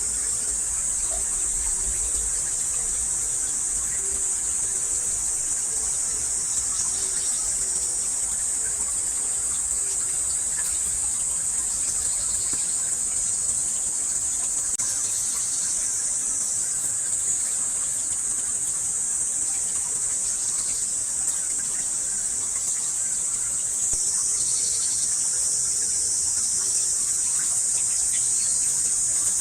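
Steady, high-pitched insect chorus, a continuous shrill drone that grows a little louder near the end.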